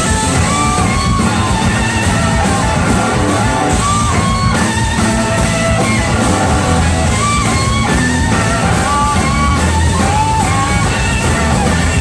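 Live rock band playing, with an electric guitar lead of short gliding notes over bass and drums.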